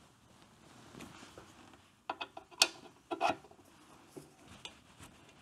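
A few sharp metallic clicks and taps from a small hand tool and metal parts being handled while a rubber hose is worked onto an anodized aluminium breather bottle. They come in a quick cluster starting about two seconds in, with a second group about a second later.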